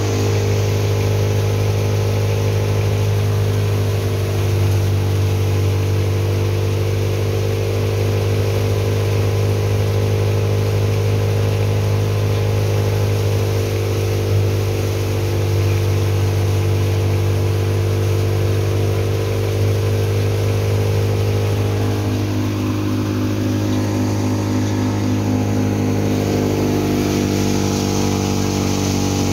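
Wheat thresher running while threshing wheat, a steady, loud mechanical hum with a strong low drone.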